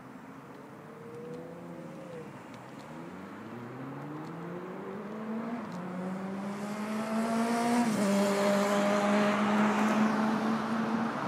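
A road vehicle's engine accelerating and growing louder, its pitch climbing and then dropping back at each gear change, the last one about eight seconds in, after which it holds a steady note.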